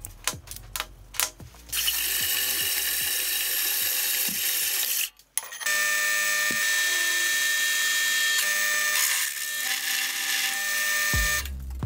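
Drill press running with a twist bit cutting into a metal bar, a steady machine noise with a high ringing tone. It stops briefly about five seconds in, then carries on.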